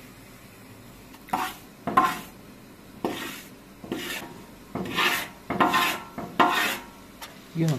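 A utensil scraping against metal cookware in about seven short strokes, roughly one a second, some with a faint metallic ring.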